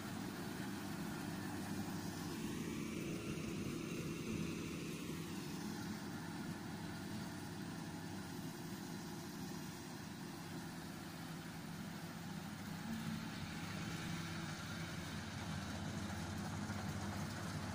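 Engine idling steadily, a low even hum that holds throughout.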